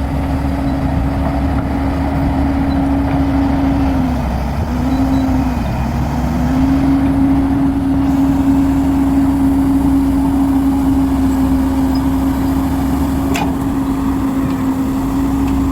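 Diesel engine of an earthmoving machine running steadily under load, its pitch dipping briefly twice about four to six seconds in before settling back.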